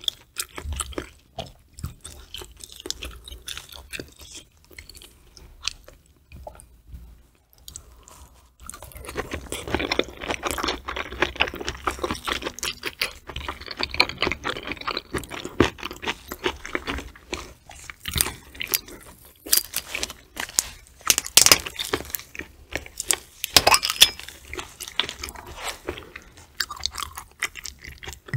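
Close-miked chewing of a mouthful of raw tuna sashimi: wet, clicky mouth and bite sounds, fainter at first and then louder and denser from about nine seconds in.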